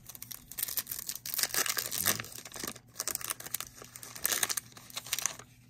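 A foil trading-card pack wrapper being torn open and crinkled by hand: a dense crackling, with louder flurries about a second and a half in and again around four seconds in.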